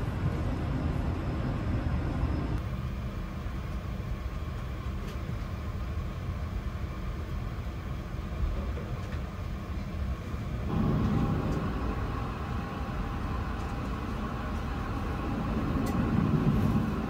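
Steady low rumble of cabin noise inside a Boeing 777-300ER parked on the ground. The sound changes abruptly about two and a half seconds in and again about ten and a half seconds in, where shots are cut together.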